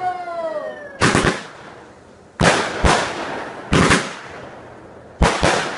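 Fireworks going off: a string of sharp bangs, about six of them, some in quick pairs, each trailing off in crackle and echo. In the first second a falling, whistle-like tone dies away.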